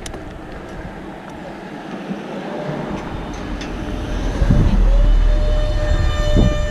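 Wind and riding noise on a bike-mounted action camera's microphone, with a heavy low buffeting that swells about two-thirds of the way through. A thin steady whine comes in about halfway.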